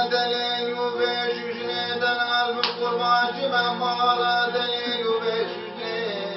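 Bağlama (long-necked Turkish saz) being strummed with a ringing drone, under a man's voice singing long, drawn-out folk lines that bend in pitch near the end.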